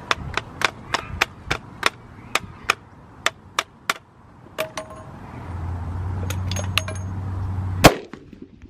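A rapid run of sharp clicks, about three to four a second, then a few ringing clicks and a steady low hum, ended by a single loud sharp crack near the end: a .338 Lapua Magnum rifle shot.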